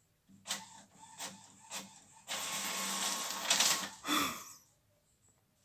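Printer starting up on its own: three short clicks about half a second apart, then its mechanism whirring steadily for under two seconds, followed by a shorter sound falling in pitch.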